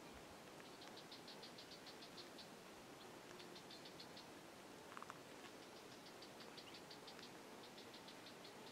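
Faint outdoor quiet with a small animal chirping: short trains of rapid high-pitched chirps, about eight a second, repeating every second or two. A single brief call about five seconds in.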